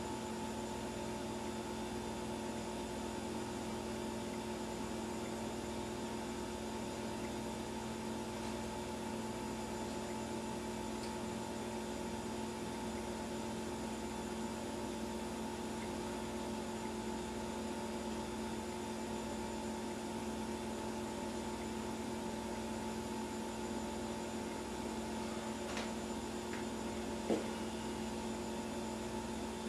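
Steady electrical mains hum, several pitches held level without change, with two faint clicks near the end.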